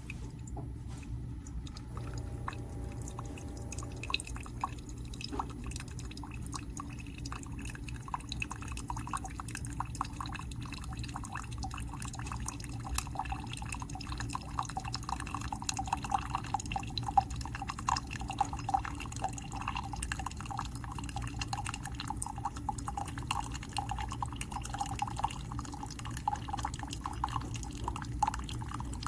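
Tastyle single-serve coffee maker brewing: a steady low hum under a fast, irregular dripping and trickling of coffee into the cup that picks up after a few seconds.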